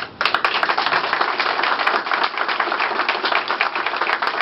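Audience applauding, the clapping breaking out suddenly just after the start and carrying on as many hands clapping at once.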